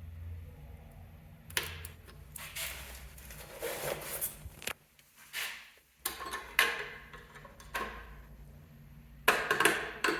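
Irregular clicks, knocks and rustles of hands handling objects, coming every second or so, over a low steady hum.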